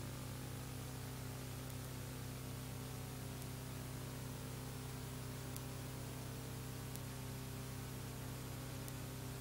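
Steady hiss with a low electrical hum and a few faint ticks: the background noise of an old analogue recording with no programme sound.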